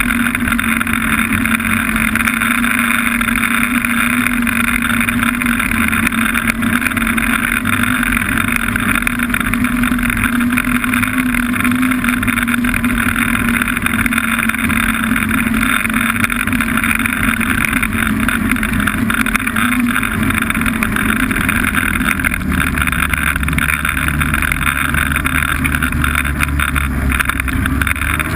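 Snowmobile engine running at a steady pitch while riding, a loud constant drone; a deeper rumble joins in for the last few seconds.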